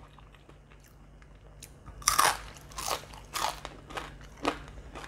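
Crunching of a crispy fried shrimp and sweet potato fritter being bitten and chewed. The first bite, about two seconds in, is the loudest, followed by crunches about twice a second.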